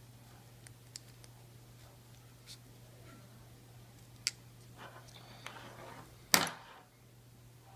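Faint handling sounds of needle-nose pliers and paracord as a knot is worked tight: scattered small clicks and a brief rustle, with one louder sharp click a little over six seconds in. A steady low hum runs underneath.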